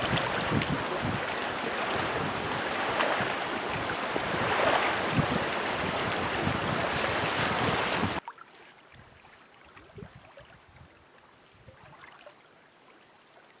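Strong wind buffeting the microphone over choppy lake water washing against the shore. About eight seconds in it cuts off suddenly to a much fainter, calmer background.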